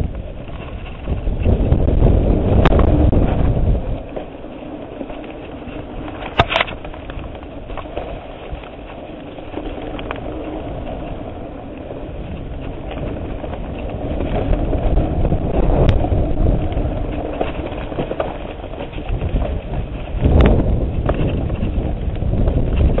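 Mountain bike ridden fast over a dirt singletrack, heard from a camera on the bike: a steady rumble of tyres on dirt and wind on the microphone, with several sharp knocks and rattles as the bike hits bumps.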